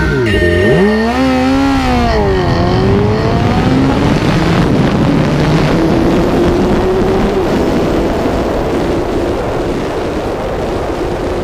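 BMW S1000RR superbike's inline-four engine heard from on board: revved in quick blips at the start line, then launched about two and a half seconds in, its pitch climbing steadily as it accelerates hard.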